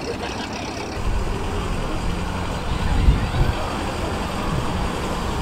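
A car engine running, a low rumble that grows louder about a second in and peaks around three seconds in.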